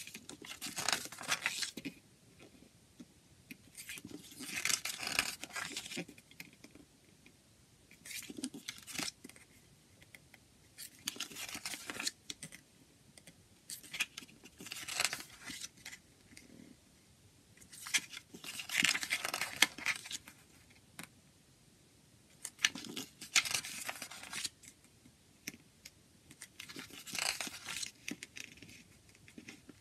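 Paper pages of a CD booklet being turned by hand, a short papery rustle with each turn, about eight times with pauses of a couple of seconds between.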